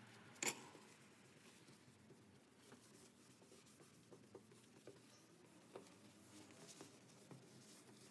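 Faint rubbing of a paper towel over a stainless steel stovetop, with small scattered ticks. There is a single sharp knock about half a second in.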